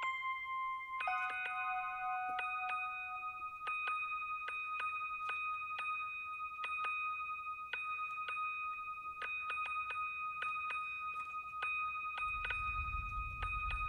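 Biodata sonification of wave-soaked moss: synthesized chime-like tones driven by the moss's electrical signals. A shifting cluster of notes in the first few seconds settles into two high pitches held steady, re-struck irregularly about twice a second. A low rumble comes in near the end.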